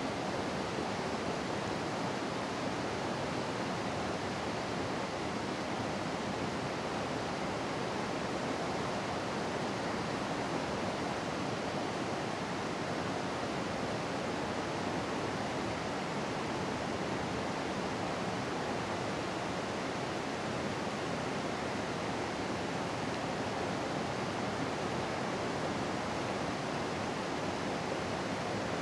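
Steady rushing of flowing river water, an even hiss that doesn't change.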